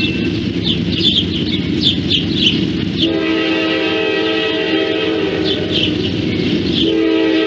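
Train passing with the rumble of its cars, a repeated high ringing about two or three strokes a second over it, and the locomotive's air horn sounding one long blast from about three seconds in, then a second blast starting near the end.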